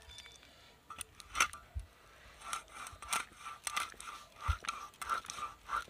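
A large aar catfish being sawn back and forth against the curved iron blade of a bonti. The blade works through tough bone: a couple of knocks at first, then from about halfway a run of rasping scrape strokes, about two to three a second.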